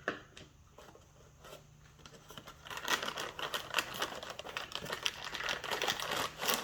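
Packaging crinkling and rustling in irregular crackles as a part is unwrapped, starting about two and a half seconds in after a near-quiet start.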